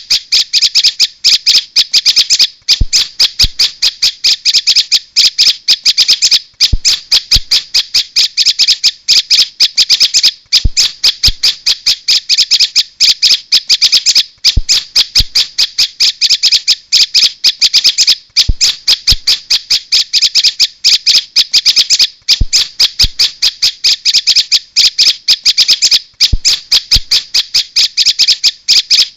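Prinia (prenjak) lure call: loud, rapid chattering notes played as a looped recording, with a short break about every four seconds.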